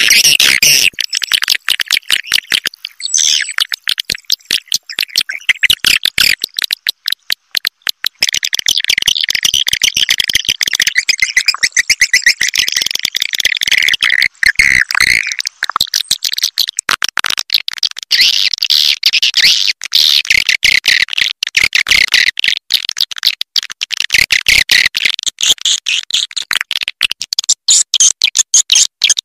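Recorded swiftlet calls: a dense, rapid chittering of many high clicking chirps, played as a roosting-call lure for swiftlets.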